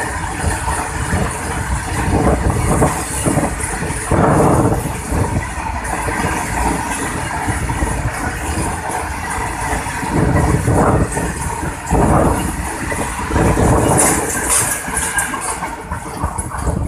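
A freight train of covered goods wagons rolling past close by: a loud, continuous rumble of steel wheels on the rails, with louder clattering surges every few seconds as the wagons go over the track. The last wagon goes by near the end.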